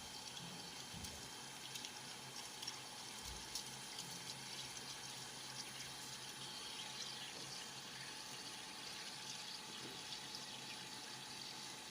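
Coolant pouring steadily over a 29 mm drill as it bores into the workpiece on a lathe, a steady splashing hiss over a faint low hum, with scattered small ticks.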